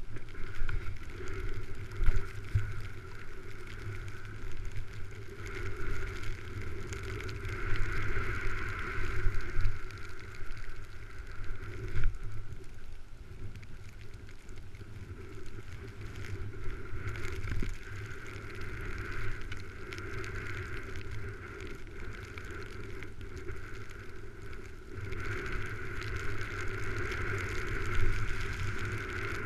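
Wind rushing over a skier's body-mounted camera while skiing downhill, with skis hissing through snow and a few sharp knocks from bumps and turns.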